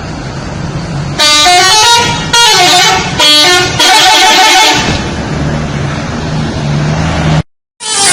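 A bus's telolet musical horn plays its tune in four loud blasts of changing, gliding notes. The horn then stops and the engine runs on with a steady low hum.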